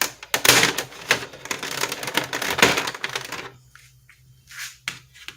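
Plastic key cover of a Brother GX-6750 electronic typewriter being popped off and handled: a quick run of plastic clicks and rattling for about three seconds, then a few softer brushing sounds.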